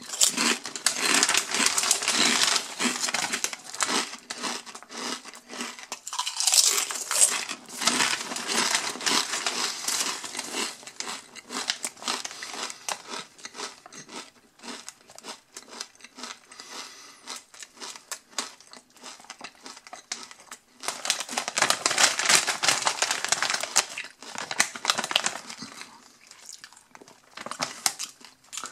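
Crinkly potato chip bag rustling and crackling as it is handled and turned over, mixed with the crunch of thick cauldron-cooked potato chips being chewed. The crackling comes in long spells, quieter for a while in the middle.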